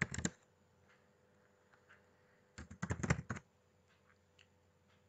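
Computer keyboard typing: a quick run of keystrokes at the start, then a second, slightly longer run about three seconds in.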